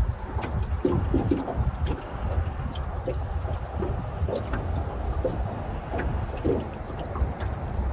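Small waves lapping against the hull of a small open boat, over a steady low rumble, with scattered small clicks and knocks.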